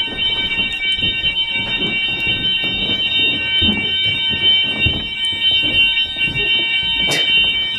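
Hotel fire alarm sounding a loud, steady, unbroken high-pitched tone, over low shuffling and handling noise; a sharp click near the end.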